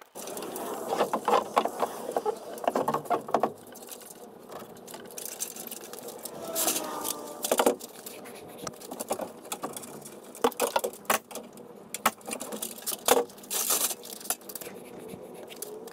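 Irregular knocks, taps and clatter from timber roof-framing work on rafters, in several bunches of quick strikes with a few sharp, louder cracks.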